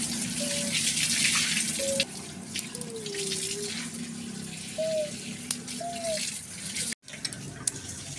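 Steady hissing and crackling from a wood fire burning in a brick-and-mud stove under a frying pan, loudest in the first two seconds, with a few short high chirps over it.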